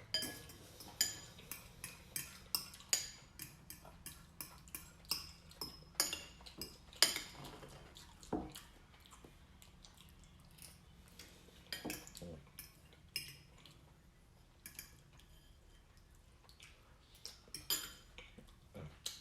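Fork clinking and scraping against a plate as the last of the pasta is scooped up: a run of quick, sharp clicks in the first half, then fewer and more spaced out, with a short flurry near the end.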